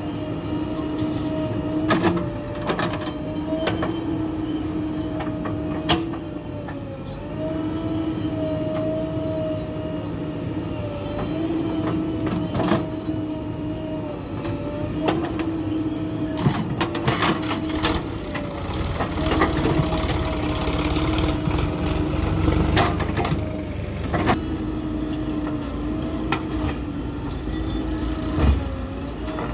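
Diesel engines of a JCB backhoe loader and a farm tractor running at a steady pitch that dips slightly now and then, with sharp knocks every few seconds.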